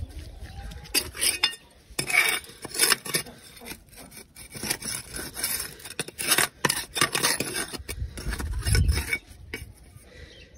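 Irregular scraping and clinking of a tool against the tractor's metal as caked earth is scraped off, in quick bursts of strokes with short pauses between.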